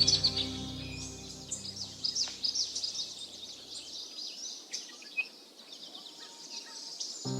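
Birds chirping and calling: many quick, high chirps and short trills, with background music fading out in the first few seconds.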